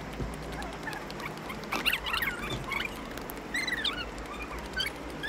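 An animal's short, high-pitched squeaky calls, a few gliding cries in quick groups about two seconds in and again near four seconds.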